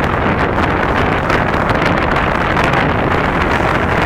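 Steady rushing wind noise buffeting the microphone, even throughout, with no bangs or other distinct events.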